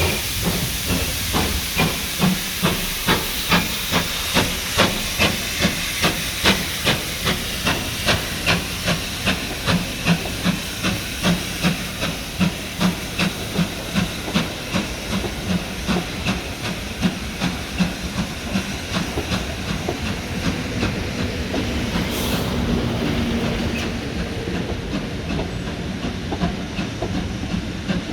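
Steam locomotive working hard, its exhaust beats about two a second and quickening, over hissing steam. About two-thirds through, the beats fade into a steady rush.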